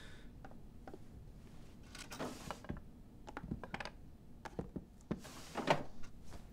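Handling noises from rummaging through furniture and bedding: scattered light knocks and clicks of a wooden drawer and a box being moved, with two longer rustles, about two seconds in and near the end.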